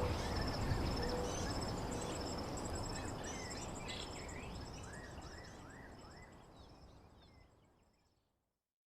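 Nature ambience of birdsong and insect trilling: short gliding bird chirps over a steady high insect trill and a low rumbling haze. It fades out gradually to silence near the end.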